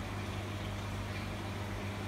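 Steady low electrical hum with a constant hiss behind it, unchanging throughout.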